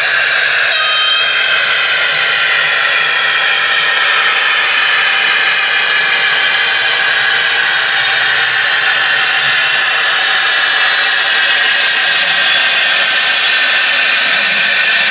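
Model railway diesel locomotive sound from a digital sound decoder: a loud, steady diesel engine drone with a high whine, as the H0 train runs.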